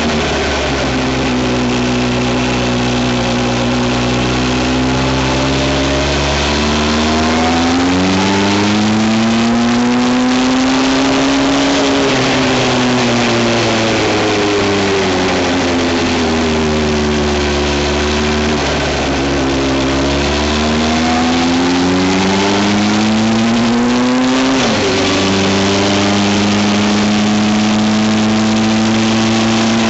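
A vehicle's engine running under way, its pitch climbing as it accelerates and sinking as it eases off, with a couple of abrupt pitch changes at gear shifts, over steady road and wind noise.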